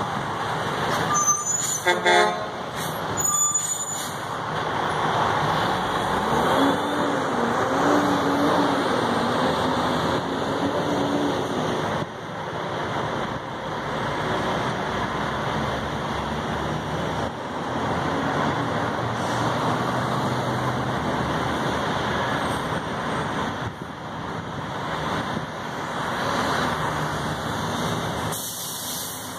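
Heavy traffic passing close by: trucks and cars going through the intersection, with a big truck's engine pulling through, its pitch rising and falling. About two seconds in there is a brief, sharp, high squeal or hiss, typical of truck brakes.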